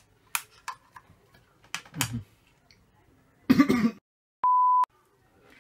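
Several light clicks of a flashlight's magnet tapping against the metal of an airsoft pistol during the first two seconds. About three and a half seconds in there is a short vocal sound, then a short steady beep tone in a gap of dead silence.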